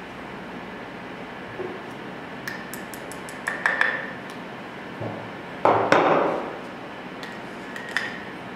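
Small metal parts of an air rifle's trigger unit and action clicking and clinking as they are fitted together by hand, with a run of light ticks and a louder knock and rattle of metal about six seconds in.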